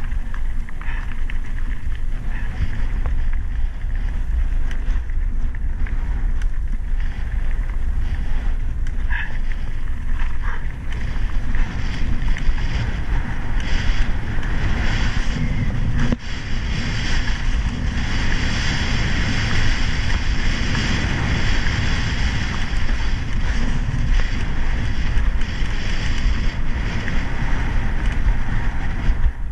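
Wind buffeting the microphone of a camera on a mountain bike riding a stony dirt track, over the crunch and hiss of the tyres on loose gravel and short knocks of the bike rattling over bumps. The gravel hiss grows louder from about twelve seconds in.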